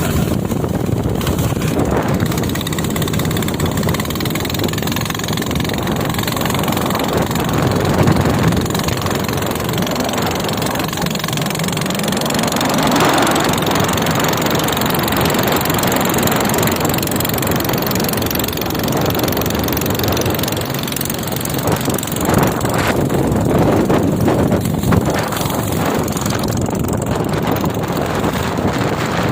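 Speedboat engine running under way, with its note rising about halfway through.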